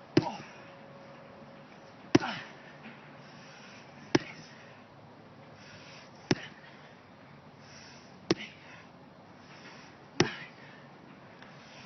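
Sledgehammer striking a heavy block of recycled rubber: six blows about two seconds apart, each a dull thud with a short decay.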